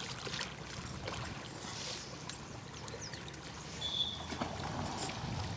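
Water lapping and sloshing around swimmers and dolphins at the surface, with a short, high steady tone about four seconds in.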